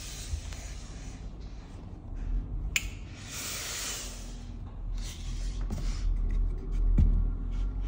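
Steam iron hissing as it sends bursts of steam into jacket cloth: a sharp click about three seconds in, a longer hiss right after it, then a run of short puffs and ticks near the end.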